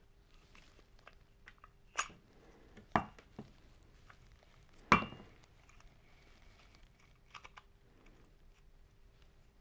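Small hard tool parts being handled: light clicks, then three sharp knocks about two, three and five seconds in, the last the loudest.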